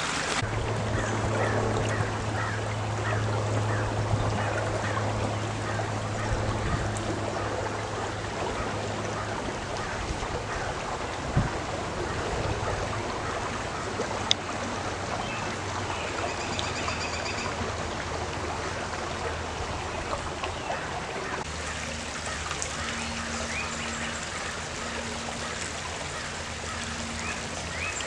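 Shallow creek water running over rocks: a steady rushing trickle, with a few short bird chirps and a low steady hum during the first third.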